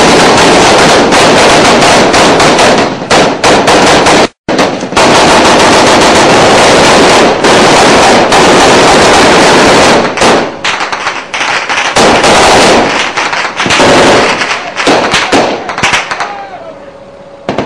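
Heavy automatic gunfire from rifles and machine guns at close range, loud enough to overdrive the recording. It is almost unbroken for about ten seconds, then comes in shorter bursts and eases off near the end.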